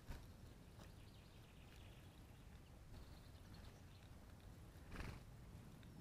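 Faint sounds of small birds feeding on seed on the ground: soft taps and rustles, a brief flutter or scuffle about five seconds in, and faint high chirps.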